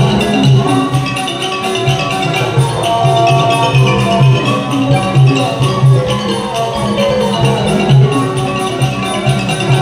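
Thai piphat mon ensemble playing: khong mon gong circles and ranat xylophone carry a busy, ringing melody over a steady low beat.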